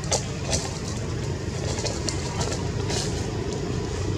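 A steady low background rumble, with a few short, sharp crackles scattered through it, like dry leaf litter being shifted.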